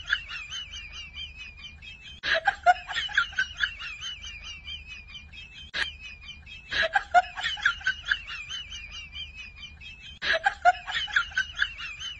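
A woman laughing in repeated bursts about every four seconds, each opening with a loud peal and running on into quicker, quieter laughs. A single sharp click about six seconds in.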